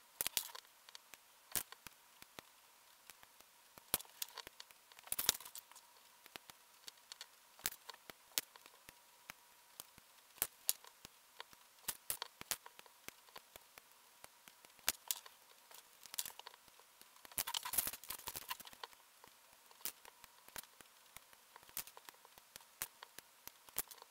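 Plastic model-kit parts being snipped from their runners with side-cutting nippers and handled, making sharp irregular clicks and snaps, with a few short bursts of denser clicking.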